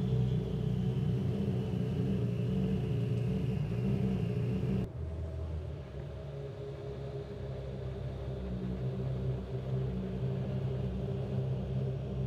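M-Sport Ford Puma Rally1 rally car's turbocharged 1.6-litre EcoBoost engine running at low revs with a steady low rumble. About five seconds in the sound drops slightly and changes, then settles into the same steady rumble.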